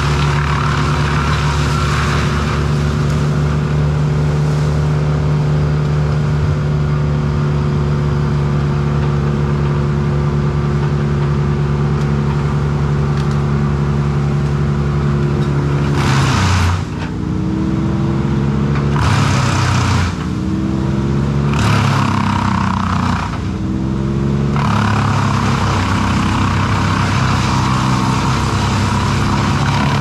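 Ford-powered Bandit wood chipper running at full throttle and chipping brush, with a steady engine note and the hiss of chips blowing out. From about halfway through, the engine pitch sags sharply three times and climbs back as loads of limbs are fed in and it bogs under the load.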